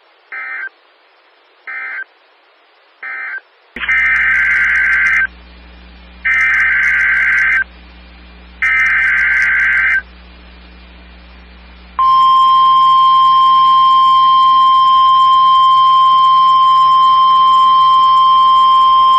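NOAA Weather Radio test signals off a receiver. First come three short digital data bursts, then the three louder SAME header bursts a second apart, and from about twelve seconds in the steady 1050 Hz warning alarm tone, loud and unbroken, over a low hum.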